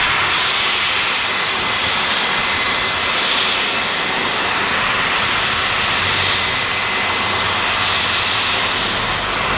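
Boeing 757-200's two turbofan engines at taxi power as it rolls toward the runway: a steady jet whine with thin high tones over a broad rush, and a little more low rumble in the second half.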